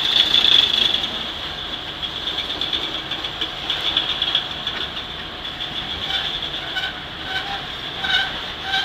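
Loaded covered hopper cars of a freight grain train rolling past on steel wheels, with a steady high-pitched tone above the rolling noise.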